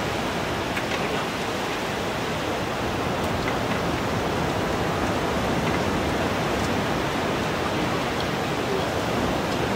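Steady, even rushing of sea surf breaking on the beach.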